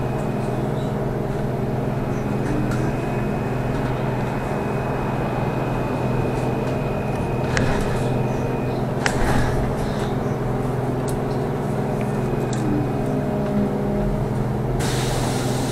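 Moving trolleybus heard from inside the cabin: steady hum of the electric drive over road and tyre noise. A thin high whine runs for several seconds in the first half, and there are two short clicks or knocks around the middle.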